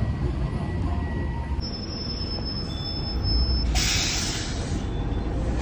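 Bus engine running with a steady low rumble as the bus pulls up. About four seconds in comes a short burst of pneumatic air hiss that fades over about a second.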